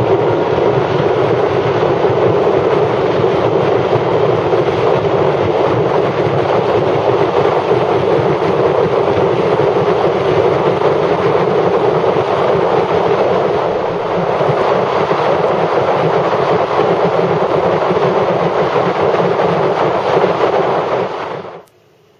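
Loud, steady rush of wind and road noise from a motorcycle riding at highway speed. It cuts off suddenly near the end, leaving a faint hush.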